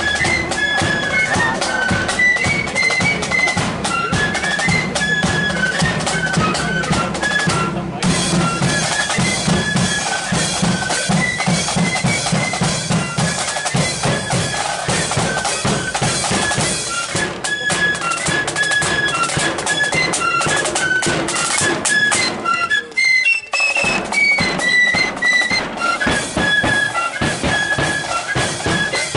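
Marching flute band playing a tune: flutes carry a high melody over bass drum and snare drums beating a steady march rhythm, with a brief break about two-thirds of the way through.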